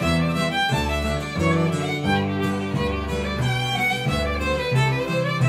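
Fiddle, acoustic guitar and upright double bass playing an Irish reel together. The fiddle carries the melody over strummed guitar chords and a plucked bass line that moves about twice a second.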